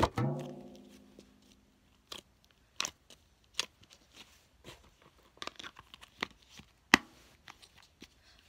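A plastic slime tub knocks against a tray, which rings briefly, fading over about a second. Scattered soft clicks and crackles follow as the slime is handled and the tub is picked up.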